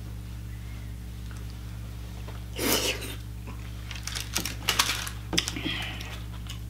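Cooked lobster shell cracking as it is broken apart by hand to get at the meat: a sharp crunch about two and a half seconds in, then a run of quick clicks and snaps over the next two seconds. A low steady hum runs underneath.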